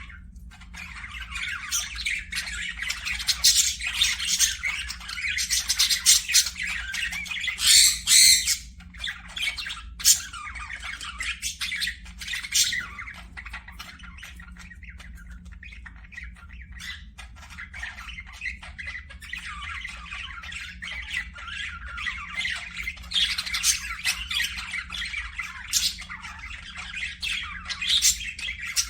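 Parakeets chattering and squawking continuously in dense, rapid calls, with louder spells of squawks about a quarter of the way in and again near the end. A faint steady hum runs underneath.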